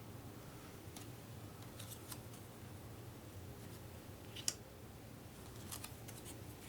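Faint, scattered clicks of thin playing cards being handled and flipped, the sharpest about four and a half seconds in, over a faint steady low hum.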